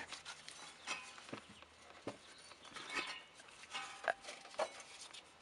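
Faint scattered rubs and clicks as a rubber serpentine belt is worked by hand over the engine's pulleys.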